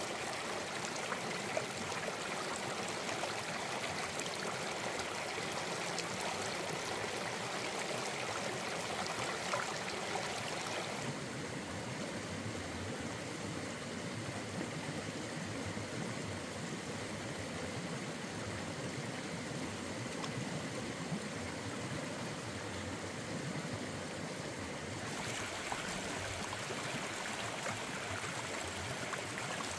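Shallow rocky stream rushing over stones, a steady watery noise throughout. It sounds duller from about eleven seconds in, then brightens again at about twenty-five seconds.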